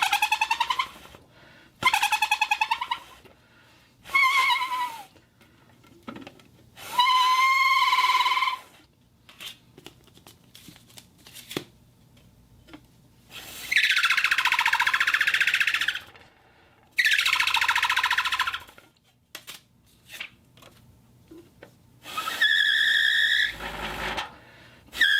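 Homemade foley whistle blown in a series of about seven blasts, each one to two seconds long. Some blasts have a bending, wavering pitch, a couple are breathier, and the last holds one steady pitch.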